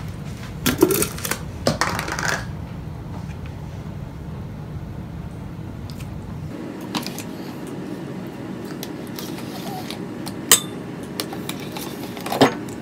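Metal spoon scooping yogurt from a plastic tub and tapping against a stainless steel mixing bowl: scattered clicks and knocks over a steady low hum.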